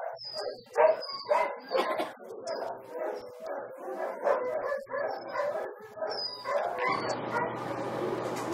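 Dogs barking, with short high whines among the barks. About seven seconds in, a steady low hum comes in under them.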